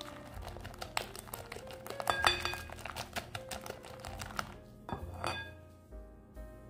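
Whisk beating egg and sugar in a bowl: quick, irregular clicking and scraping strokes of the wires against the bowl, over background music.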